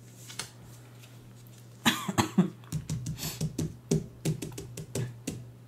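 Board-game cards and cardboard pieces being handled and set down on a tabletop: a sudden louder burst about two seconds in, then a run of irregular light clicks and taps over a steady low hum.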